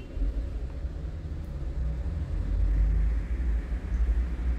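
Steady low rumble picked up by a thermal rifle scope's built-in microphone, with a faint steady hum in it.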